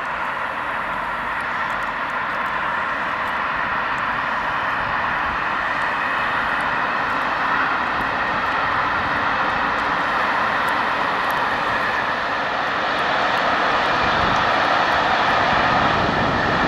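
SNCF BB 7400-class electric freight locomotive BB 7411 hauling a train of tarpaulin-covered wagons past: a steady rolling noise of wheels on rails that grows a little louder near the end.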